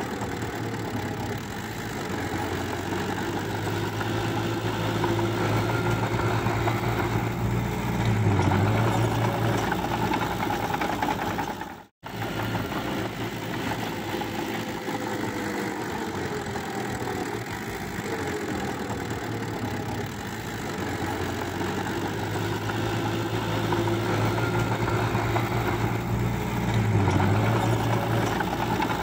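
Diesel engine of a small crawler bulldozer running steadily, its pitch sagging briefly twice as it takes load. The sound cuts out for an instant about twelve seconds in, and the same stretch of engine sound then repeats, as in a looped recording.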